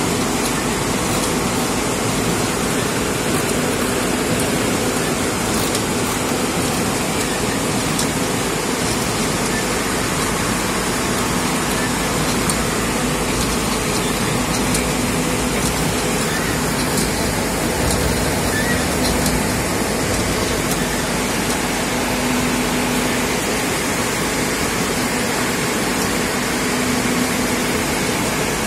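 GA841-series automatic cloth folding machine running, its swinging folding arm laying fabric: a steady hiss and hum with a few faint clicks, over the constant din of the mill.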